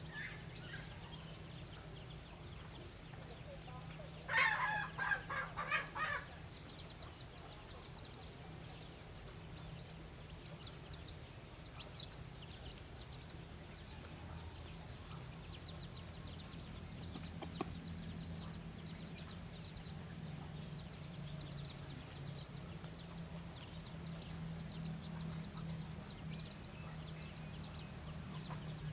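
A chicken clucks a quick run of about five loud calls about four seconds in, over a steady low hum.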